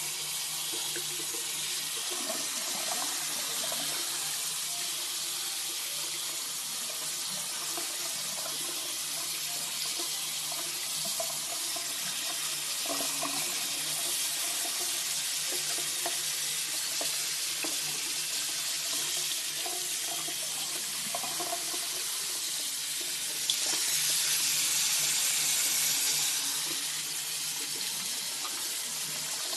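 Steady hiss of running water, louder for a couple of seconds about three quarters of the way through.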